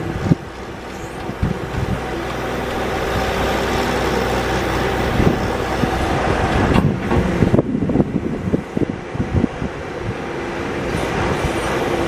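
John Deere 310-series backhoe loader's diesel engine running under hydraulic load while the backhoe boom and bucket are worked, with a steady tone over the engine. Irregular knocks and clanks come through, most of them a little past halfway, and the overall level creeps up toward the end.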